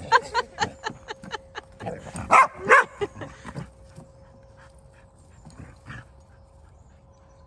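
Dogs playing, yapping and barking: a quick run of short yaps, then two louder barks about two to three seconds in, quieter after that.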